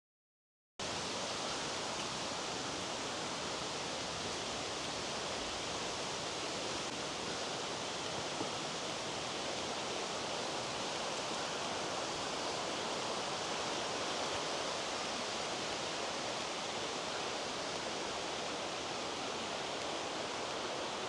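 Steady rush of river water, an even hiss without let-up, after a brief dropout right at the start.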